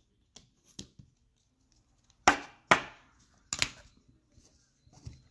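Cards and boxes being handled on a tabletop: a few short, sharp clacks, the three loudest in quick succession near the middle, with fainter taps before and after.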